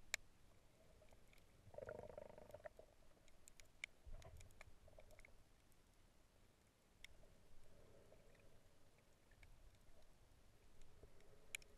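Faint underwater ambience: scattered sharp clicks and a few muffled low swells. The loudest click comes just after the start, and a small cluster of clicks falls around four seconds in.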